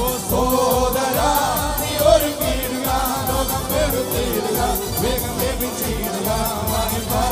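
A group of men singing a worship song together into microphones, over instrumental backing with a steady beat.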